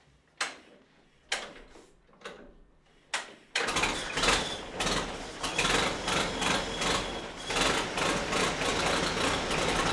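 1940 Fordson N tractor's four-cylinder side-valve engine being hand-cranked, with a few sharp knocks as the starting handle is swung. About three and a half seconds in it catches and keeps running loudly: the rebuilt engine's first start, on the second swing of the crank.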